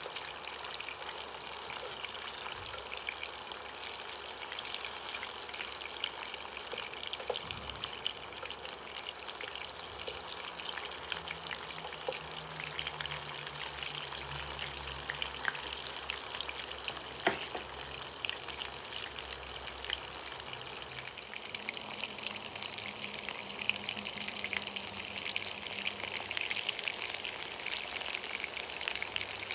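Meatballs sizzling and crackling as they shallow-fry in sunflower oil in a pan, with a dense patter of spitting oil that grows a little louder near the end. A single light knock partway through.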